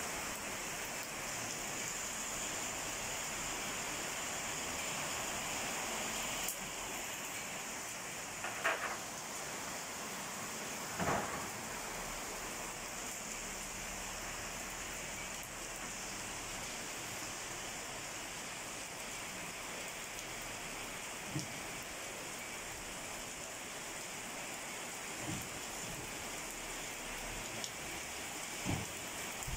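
Heavy rain falling steadily, with a handful of brief, louder taps close by.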